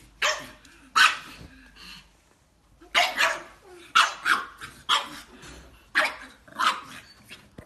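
Pug puppy barking: short, sharp barks, often in quick pairs about a second apart, with a short pause a couple of seconds in.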